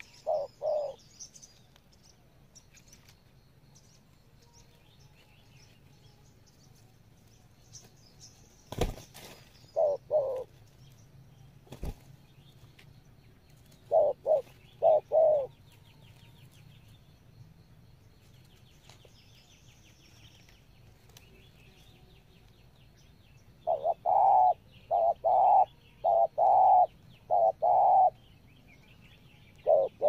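Spotted doves cooing in short phrases of two or three low notes, then a longer run of about six coos near the end. Two sharp clicks or flaps come about nine and twelve seconds in.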